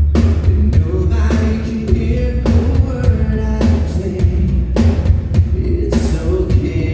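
Live rock band playing loud, amplified, with a heavy bass and drum kit, and singing over it.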